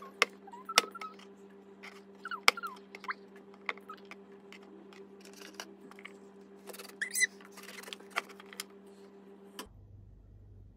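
Brown beech mushrooms being pulled apart by hand on a cutting board: irregular small snaps and clicks with a few short squeaks, over a steady low hum that stops near the end.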